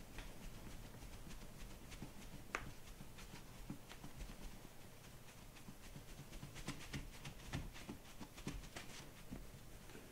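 Faint, irregular soft taps and fabric rustle from trembling legs and feet shifting on an exercise mat during a body-work tremor exercise, with one sharper click about two and a half seconds in and the taps coming thicker a little past halfway.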